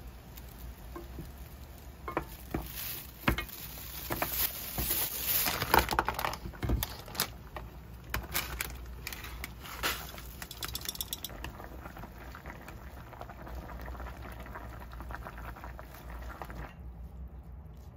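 Soup broth boiling in a stainless steel saucepan, with splashes and clinks against the pot as dumplings and a block of instant noodles go in and are stirred with chopsticks.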